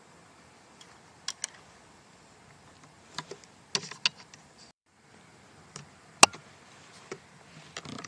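Scattered sharp clicks and snaps over a faint hiss: a pair about a second in, a cluster around three to four seconds in, a single loud one about six seconds in, and more near the end. The sound cuts out completely for a moment a little under five seconds in.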